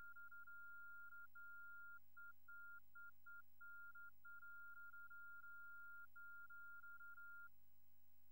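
Morse code beeps from a Morse code widget on a Nokia S60 phone: one steady, fairly high beep keyed on and off in dots and dashes, stopping shortly before the end.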